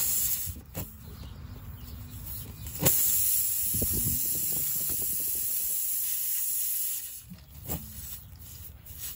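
Air hissing steadily out of a car tire through a screw puncture, left open while the spiral reamer is out of the hole. It starts suddenly about three seconds in and stops about four seconds later. Short scrapes come from the reamer being worked in the hole near the start and near the end.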